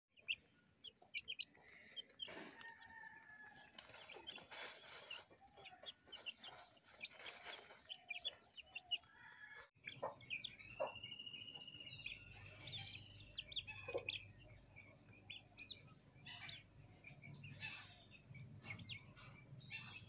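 Faint peeping and clucking of young Aseel chickens while they feed, many short scattered calls, with one longer trilling call about halfway through.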